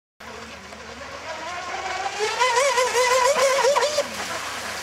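Electric RC speedboat running at speed on a 6S LiPo pack: its motor and propeller whine wavers up and down in pitch over a steady rushing noise, growing louder about halfway through. The sound cuts in abruptly a moment after the start.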